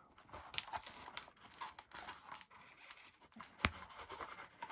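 Small handling noises of parts and hand tools at a workbench: irregular rustling and scraping with light clicks, and one sharper click about three and a half seconds in.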